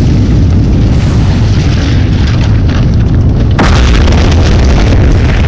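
Film sound effects of a volcanic eruption: a continuous deep rumble, with a sudden blast about three and a half seconds in that adds a loud rushing hiss as the ejecta fly.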